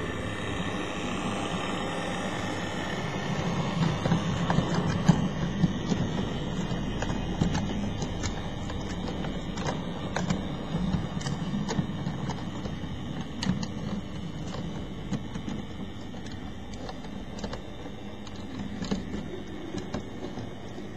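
OO gauge model Class 22 diesel locomotive's motor whirring as it hauls a short train of wagons, louder as it passes close about four seconds in and then fading. Irregular clicks of the wheels running over the rail joints and points.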